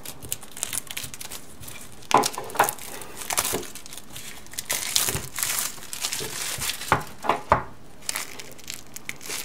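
Clear plastic shrink-wrap film being slit with a knife and peeled off a small cardboard phone box. It crinkles and crackles in irregular bursts, with a few sharper cracks.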